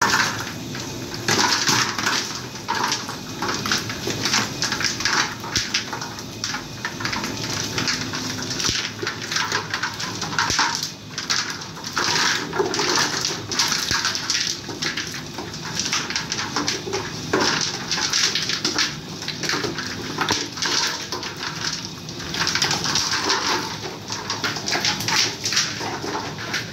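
Fork dough mixer kneading a large batch of bread dough with ice cubes in a stainless steel bowl: the machine runs steadily under constant irregular slaps and squeaks of the dough.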